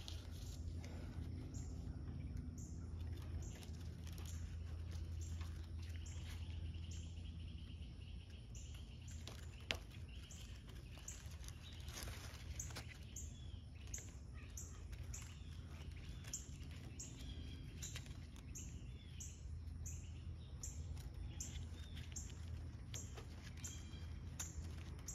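Faint outdoor ambience: birds chirping, with a high chirp repeating every second or so over a steady low rumble. A few light clicks, the sharpest about ten seconds in.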